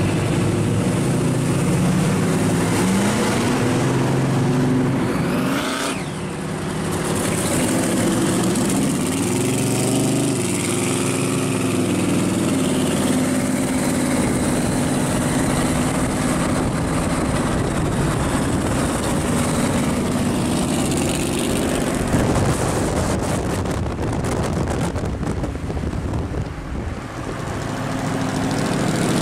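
Hot-rod engines running on the highway, rising and falling in pitch a few times in the first ten seconds as they rev, then a steadier drone under road and wind rush. The later part is most likely the supercharged engine of an orange custom wagon cruising alongside.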